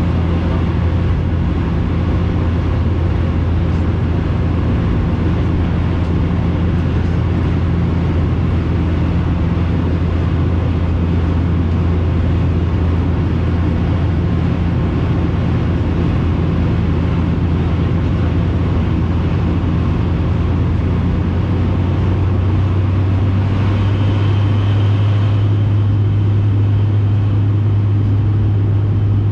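Bombardier Q400 turboprop heard from inside the passenger cabin: the steady low drone of its six-bladed propellers over rushing air noise. About three-quarters of the way through, the drone shifts a little higher in pitch and gets slightly louder.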